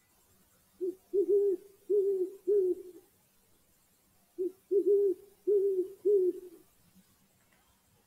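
An owl hooting: two phrases of four low hoots each, the first note of each phrase short and the rest longer.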